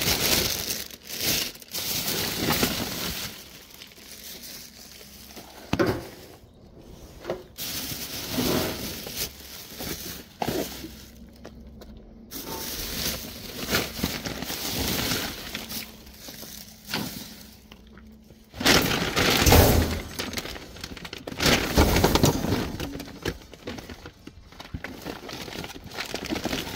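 Plastic bin bags rustling and crinkling as gloved hands rummage through them in a wheelie bin, with an occasional knock of items shifting inside; the handling is loudest about three-quarters of the way through.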